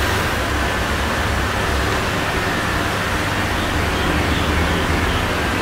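Steady low rumble with an even hiss over it: constant background noise with no distinct events.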